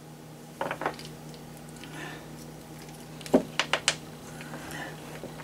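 Small hard clicks and taps from hands handling RC truck parts while an electronic speed control is fitted to the chassis: a short cluster about half a second in and a quick run of four sharper clicks a little after three seconds, over a low steady hum.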